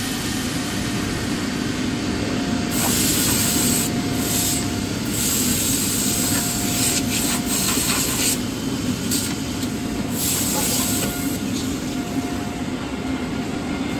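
Six-sided CNC panel drilling machine running: a steady mechanical noise with a constant hum, broken by several bursts of hissing that each last about a second.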